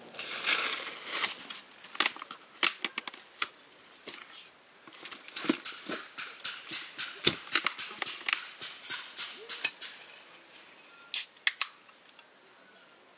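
A burst of rustling, then many irregular sharp clicks and light knocks, the loudest two close together near the end.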